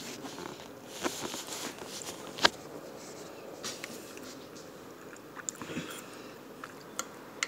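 Close-miked eating: chewing and mouth noises, with a few sharp clicks of a metal fork against the plate as she cuts into a country fried steak. The loudest click comes about two and a half seconds in.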